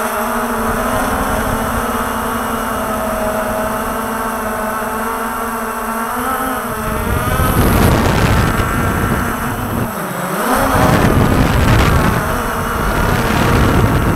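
Walkera TALI H500 hexacopter's electric motors and propellers humming steadily, heard from its onboard camera. About halfway in, a loud rush of wind and prop wash takes over as it manoeuvres, and the motor pitch dips and climbs back near the ten-second mark.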